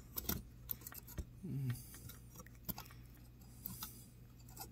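Scattered small clicks and ticks of metal tweezers working a tiny retaining clip onto the shaft of a brushless computer fan motor. There is a short low vocal murmur about a second and a half in.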